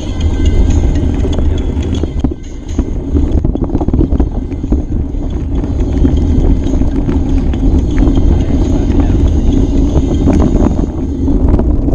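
Wind buffeting the microphone over a bike clattering along a rough trail, with many small knocks and rattles from the bike throughout.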